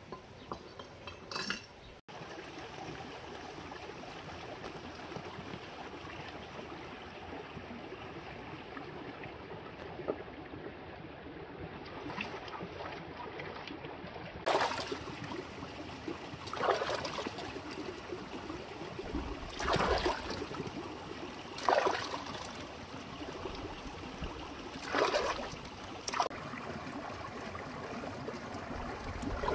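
Water trickling steadily, with about six short, louder splashes spread over the second half.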